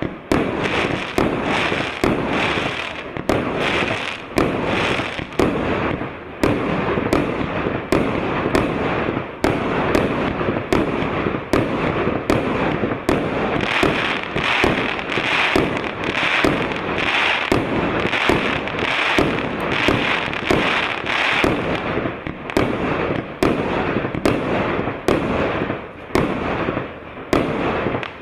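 A 100-shot 1.25-inch consumer fireworks cake firing in steady succession: sharp shots about one to two a second, with the noise of the bursts running together between them.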